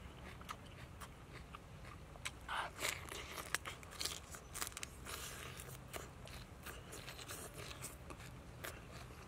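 A person biting and chewing crisp raw vegetable flesh, with irregular wet crunches; the loudest come about three seconds in.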